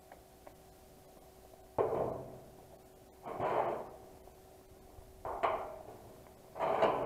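A large sheet of thin rusty steel being handled, banging and rumbling four times as it is knocked and flexed, each sound dying away within about a second.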